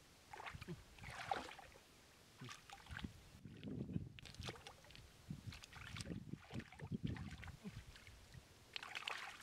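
Hands sloshing and splashing through shallow, muddy floodwater and wet grass, groping for snails, in irregular bursts.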